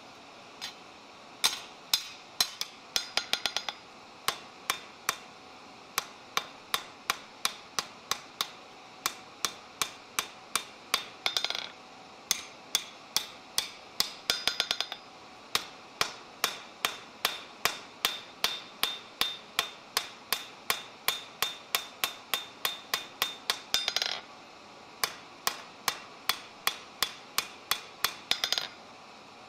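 Blacksmith's hand hammer striking a red-hot steel bar on an anvil: steady blows about two a second, broken by a few short flurries of quick, light taps.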